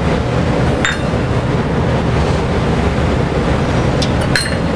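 Small stainless steel measuring cups clinking against each other and the metal mixing bowl: one light ringing clink about a second in and a few more near the end. Under them runs a steady low rumble of kitchen background noise.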